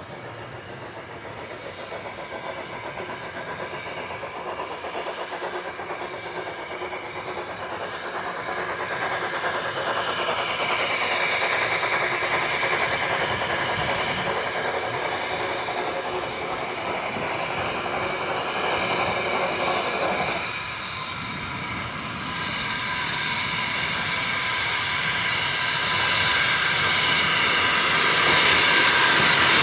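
Victorian 0-4-0 saddle tank steam locomotive working a train of vintage coaches, drawing closer and growing louder. About two-thirds of the way in the sound drops suddenly as steam is shut off, then builds again as the engine and coaches run in close with wheels rattling on the rails.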